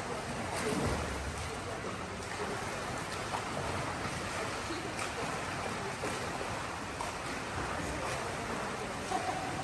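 Swimming-pool water noise: a steady rushing hiss with scattered faint clicks and splashes.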